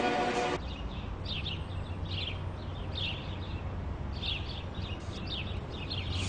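Background music cuts off about half a second in. Small birds then chirp again and again, in short quick falling chirps, over a low steady hum.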